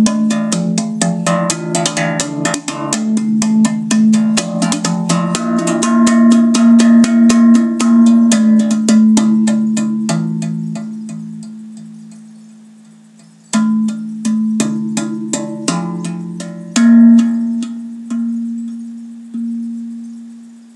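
Zen Tambour steel tongue drum played with bare hands: a quick run of ringing metallic notes over a low sustained tone. About halfway the strikes stop and the notes ring out and fade, then a few more strikes come, and a last note rings and dies away near the end.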